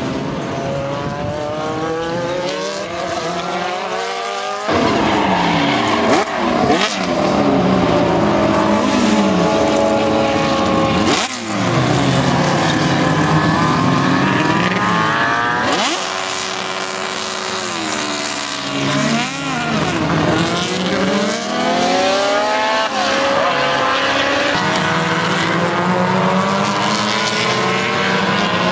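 Historic racing cars' engines revving and passing close by, their pitch rising and falling as they accelerate, change gear and brake. The sound changes abruptly a few times as different cars take over.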